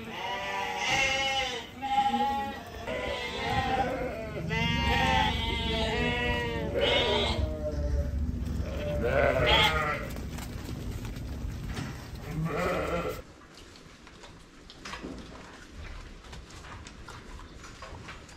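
A penned flock of ewes and lambs bleating, many loud calls overlapping one another. About thirteen seconds in the bleating stops suddenly, leaving a quieter background with faint scattered clicks and knocks.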